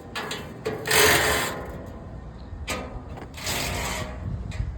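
Blower motor assembly being handled and worked on: a few bursts of scraping and rubbing of metal parts, the loudest about a second in.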